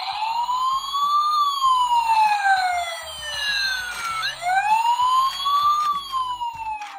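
Electronic toy siren wailing, its pitch sliding slowly up and down twice.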